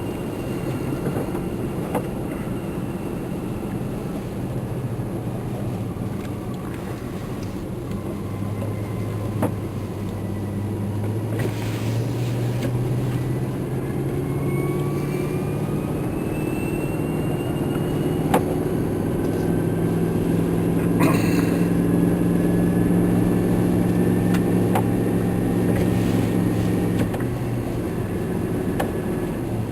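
Vehicle engine running while driving, heard from inside the cabin. Its drone rises steadily in pitch as it picks up speed, holds, then drops back a few seconds before the end. A few brief clicks and knocks come through.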